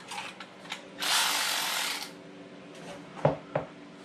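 Cordless drill-driver running a bolt in for about a second, then two sharp knocks.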